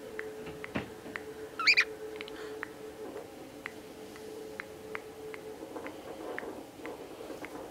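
Pet budgies chirping in short, scattered high chips, with one louder rising call about two seconds in. Under them a steady low tone runs and stops about two-thirds of the way through.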